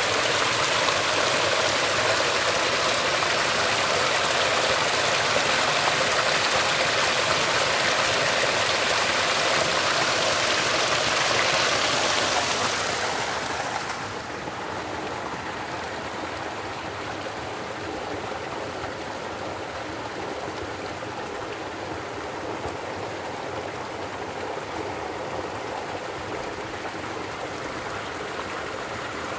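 Water from a stone fountain's seven spouts splashing steadily into its trough, a loud, even rush. About halfway through it falls quieter and duller, to water running over rock.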